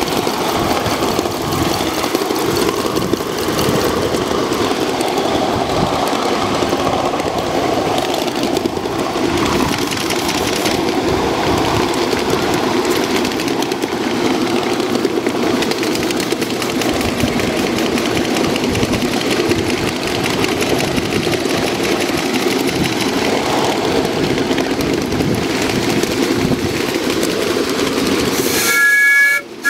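Live steam model of ET&WNC #12 'Tweetsie' running at speed along its track, a steady clatter of the locomotive and its wheels on the rails. Near the end its steam whistle starts, several notes sounding together.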